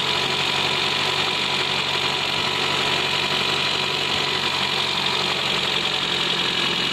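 Car engine running at a fast idle, about 1,500 rpm, together with the steady whir of the electric radiator fan. The fan is wired direct, so it runs nonstop, and the mechanic links this to the raised idle.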